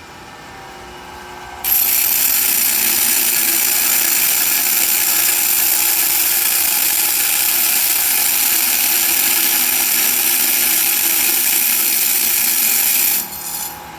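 Bench grinder running, then a wheel dresser is pressed against the spinning grinding wheel about two seconds in, giving a loud, steady grinding hiss that lasts about eleven seconds before it stops near the end. The dresser is reshaping the face of the wheel.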